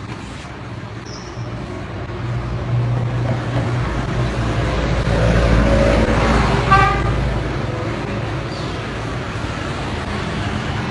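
Road traffic: a vehicle rumbles past close by, swelling and fading over a few seconds, and a horn toots briefly about two-thirds of the way in.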